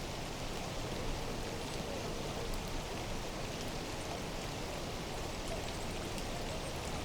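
Steady, even hiss of water outdoors, with faint scattered ticks like drops.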